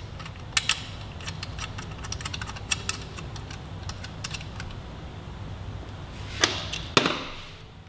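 Light metallic clicks and taps of hand tools against billet aluminium rearset parts while a footpeg bracket is fitted, with two sharper clacks near the end.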